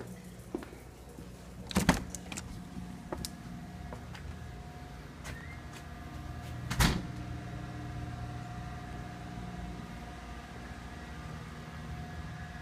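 A door being opened and passed through: latch clicks and knocks about two seconds in, then another thump about seven seconds in. A steady low mechanical hum with a faint whine runs underneath.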